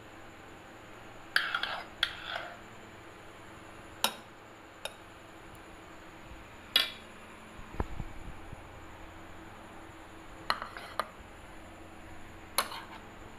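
A spoon clinking against a glass bowl of custard, about eight separate sharp clinks, some with a brief ring, plus a dull thud about eight seconds in.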